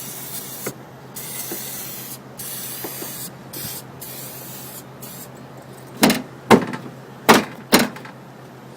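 Spray can hissing in several short bursts as a corrosion-protection spray is misted over an air-conditioner's circuit boards. This is followed near the end by four sharp, loud knocks.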